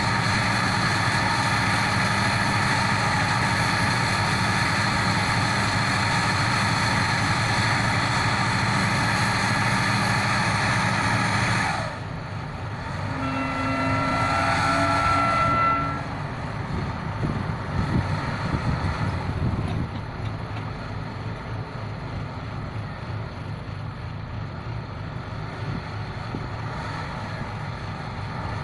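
Heavy diesel machinery of a pile-driving rig running loud and steady, then dropping sharply about twelve seconds in. A short rising tonal sound follows, then quieter engine running with a few irregular knocks.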